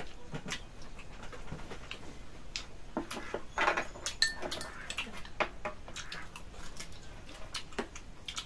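Eating at a meal: chewing and mouth sounds mixed with many light clicks of a spoon and chopsticks against small bowls and a metal tray.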